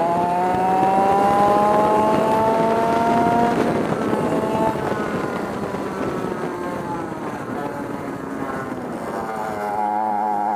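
Onboard sound of a historic 100cc two-stroke kart engine at high revs, its pitch climbing steadily for about three and a half seconds under acceleration. The pitch drops as the throttle comes off, runs lower through the middle, then climbs again with a wavering note near the end as the kart accelerates out of a corner.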